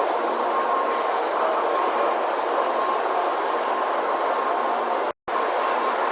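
Tokaido Shinkansen train running with a steady rumble and a high thin whine that fades out about four seconds in. The sound cuts out completely for a moment about five seconds in.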